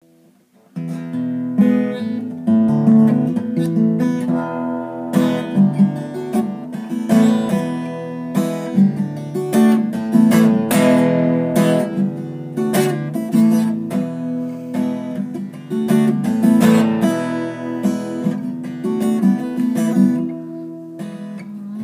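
Acoustic guitar strummed and picked, its chords ringing, starting about a second in.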